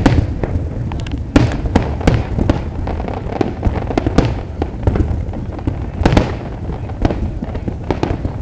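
Aerial fireworks bursting in a rapid, irregular barrage: many sharp cracks and pops, with bigger booms about a second apart that each trail off in a rumbling echo.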